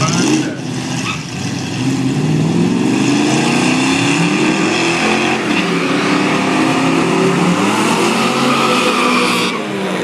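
A V8 drag car doing a burnout: the engine is held at high revs, rising and falling several times, over the hiss of spinning rear tyres. The tyre hiss stops sharply near the end.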